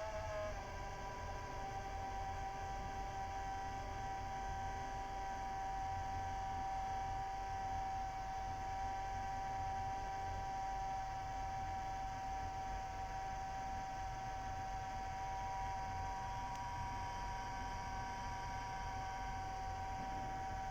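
Wanbo T2 Max projector giving off a steady whining hum of several held tones, the strange noise its owner is complaining of. The pitch wavers and steps down slightly about half a second in, then holds steady.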